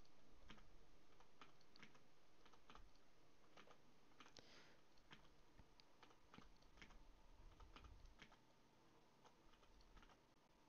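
Faint, irregular computer keyboard keystrokes and clicks, scattered single presses a fraction of a second to a second apart.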